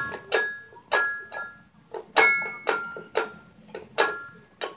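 Toy piano with metal xylophone-style bars banged by a baby: about ten bright ringing notes struck at uneven intervals, with no tune.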